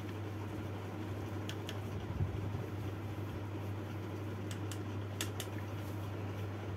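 Steady low mechanical hum in a small room, with a few faint clicks in pairs about a second and a half in and again around five seconds in.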